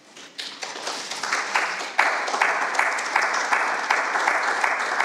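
Audience applause: a few scattered claps that swell into steady clapping from many hands about two seconds in.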